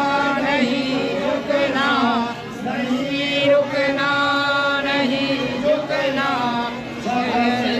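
Voices chanting a Hindu devotional chant with long held notes and wavering ornamented phrases, dipping briefly twice.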